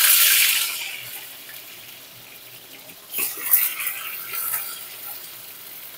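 Boiled new potatoes frying in hot mustard oil in a kadai: a loud sizzle that dies down over the first second or so to a steady, quieter sizzle, with a few crackles about three and four and a half seconds in.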